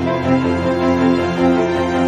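Background music: sustained, held chords.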